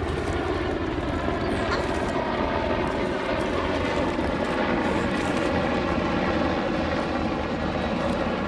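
An engine running at a steady speed, a constant droning hum with an even low rumble underneath.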